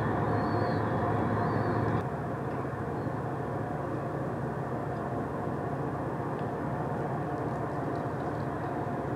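Steady harbour machinery drone with a faint hum in it, a little quieter after about two seconds. A few faint high chirps in the first two seconds.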